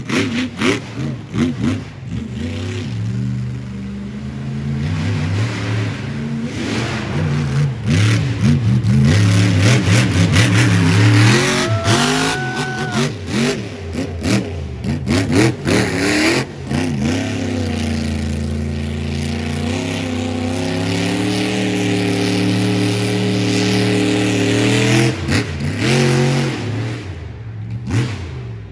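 A 1,500-horsepower competition monster truck engine revving hard, its pitch rising and falling as the throttle is worked. It then holds a long steady high pull for several seconds before coming off near the end.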